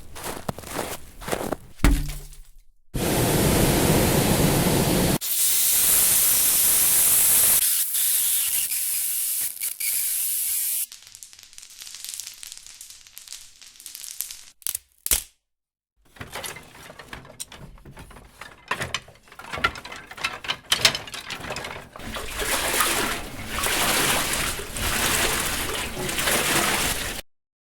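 A string of separate sound-effect samples cut one after another: bursts of clicks, several stretches of steady hissing noise, crackling, and a brief gap of silence partway through.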